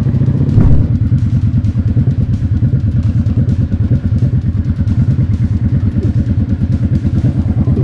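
Motorcycle engine running with a steady, low pulsing beat as the bike is ridden, with a loud thump about half a second in.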